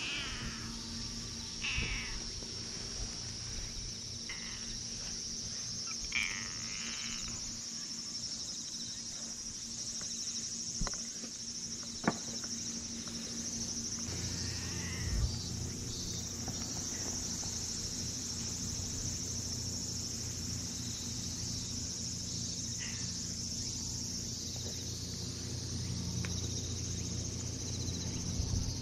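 A steady, high insect chorus of crickets or similar singing insects. A few brief calls sound over it, and there is one sharp click about twelve seconds in.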